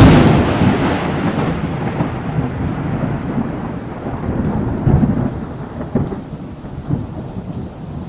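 A sharp thunderclap followed by long rolling thunder rumbling and swelling a few times over steady rain, slowly fading.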